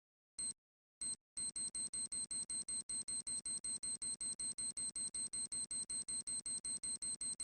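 Electronic beeping: short high-pitched beeps, two spaced about half a second apart, then from just over a second in a steady rapid run of about five beeps a second.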